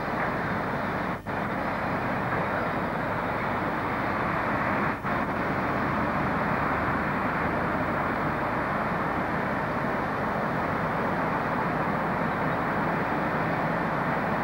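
Steady running noise of a train, an even rumble with no distinct events, broken by two brief dropouts about a second in and about five seconds in.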